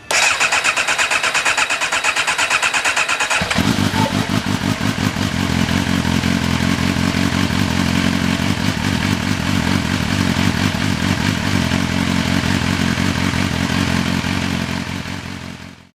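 MV Agusta Brutale 750S inline-four engine, freshly swapped in, cranked on the starter for about three and a half seconds, then catching and running steadily before fading out near the end.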